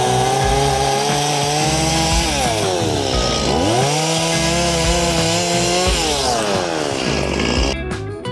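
Stihl MS170 two-stroke chainsaw running at high revs. Its engine note drops off twice and climbs back up as the throttle is let off and opened again. Near the end it gives way to strummed guitar music.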